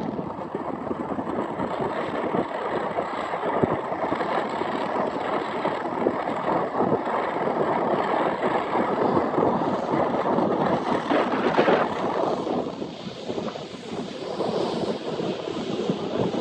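John Deere combine harvester running as it harvests soybeans, a steady mechanical din with wind buffeting the microphone. It drops off for a moment about twelve seconds in, then comes back.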